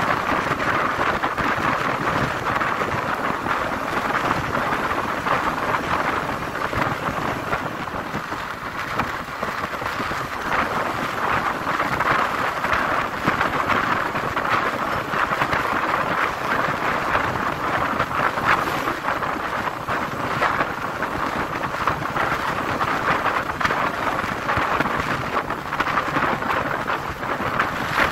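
Steady wind rush on the microphone of a motorcycle riding at speed, with road noise underneath.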